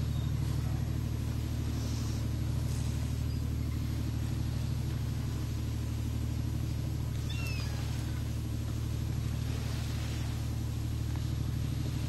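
A small fishing boat's engine running steadily with an even, low hum.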